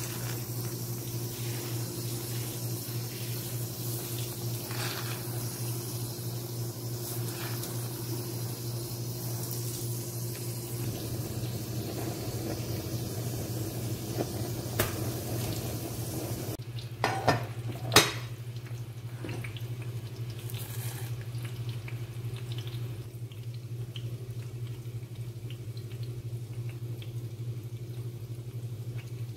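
Kitchen sounds: a steady low hum throughout, with a few sharp metallic clinks of a steel pot and utensils about halfway through, the loudest a single knock shortly after.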